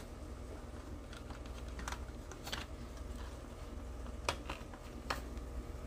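Light plastic clicks and taps, a few scattered sharp ones, as the chassis of a plastic Superbird scale-model kit is pressed and seated into its upturned body for a test fit.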